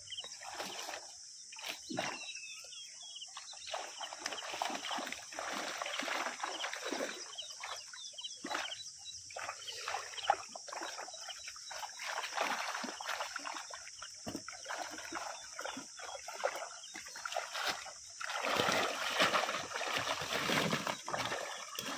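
Irregular splashing and sloshing of shallow muddy water as fish are scooped out with hand nets in a drained pond, growing louder near the end.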